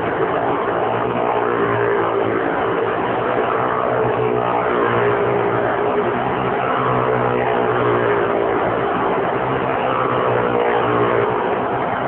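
Engines of a motorcycle and small cars riding around the wall of a wall-of-death drum, running in a steady, continuous drone.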